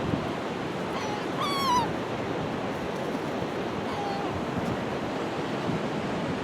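Surf washing steadily onto the beach, with a short, high, slightly falling call from an animal or bird about a second and a half in, and a faint brief call near four seconds.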